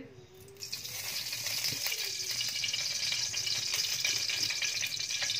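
Olive oil sizzling with light crackling in a hot wok, starting about half a second in as the oil hits the pan and then holding steady.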